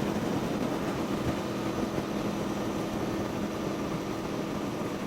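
Aprilia Tuono V4 motorcycle engine running at a steady cruise in sixth gear, with a steady rush of wind and road noise.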